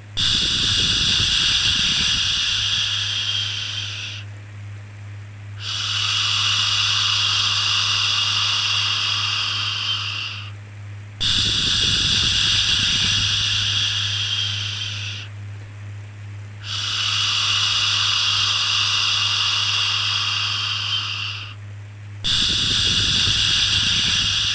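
Long 'shhh' shushing sounds repeated one after another, about five in a row, each lasting four to five seconds with a short pause between. A steady low hum runs underneath.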